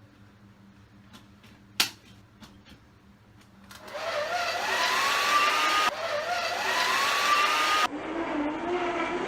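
A sharp click about two seconds in, then a handheld hair dryer switched on near the middle: rushing air with a motor whine that rises as it spins up. The whine breaks off and climbs again twice as the dryer is switched or moved.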